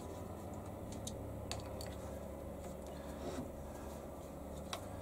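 A handful of light, sharp metallic clicks as bolts and an Allen key are handled on a lathe's milling slide, over a steady faint hum.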